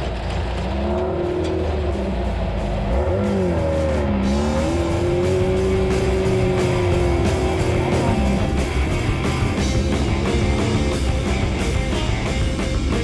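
Air-cooled VW engine of a Class 9 desert racing buggy running hard, its pitch rising, dipping sharply about three to four seconds in and then holding steady, with rock music playing over it.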